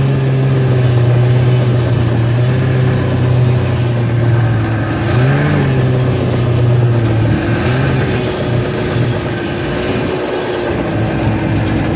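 Small vehicle engine running steadily at low speed, with brief rises in pitch about five and a half and eight seconds in.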